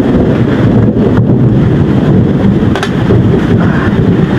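Rainstorm noise: heavy rain and wind making a loud, steady low rumble.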